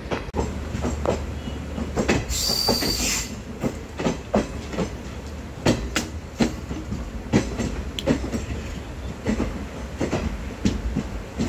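Moving passenger train: steady rumble with the wheels knocking irregularly over rail joints, and a brief high hiss with a thin squeal about two seconds in.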